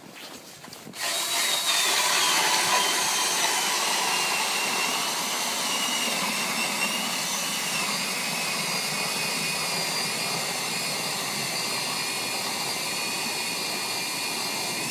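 Cordless drill spinning an ice auger as it bores a hole through the ice. It starts about a second in and runs steadily, a high motor whine over the grinding of the auger cutting.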